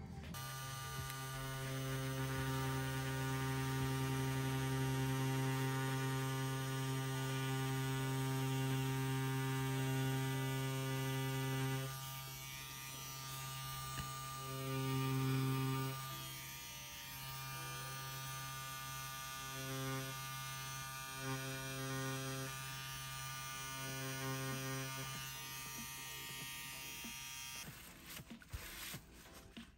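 Hummingbird Bronc V1 wireless rotary tattoo pen, its Maxon motor running with a steady hum while a 13-round shader needle pulls lines in silicone practice skin. From about halfway the hum turns uneven, swelling and dipping, and it stops shortly before the end.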